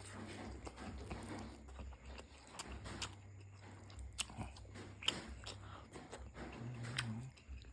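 A person chewing and biting a mouthful of pork noodles close to the microphone, with scattered small clicks over a steady low hum.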